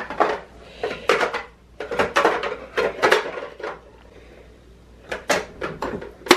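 Plastic Play-Doh tools and cutters clattering and knocking on a wooden table in quick runs of taps and clicks, with a lull about four seconds in and one sharp loud knock at the end.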